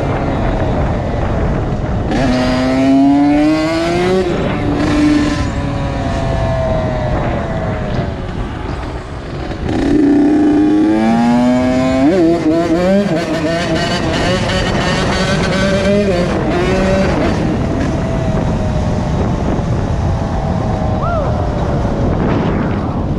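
Honda CR80's 80cc single-cylinder two-stroke engine under way, revving up through the gears with the pitch climbing and dropping back at each shift, twice, then running more steadily. Wind rushes over the microphone throughout.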